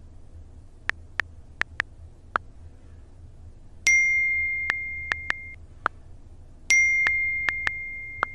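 Smartphone message sounds: a few quick keyboard-tap clicks, then a bright notification ding about four seconds in that rings and fades over about a second and a half. More taps follow, and a second identical ding comes near the end.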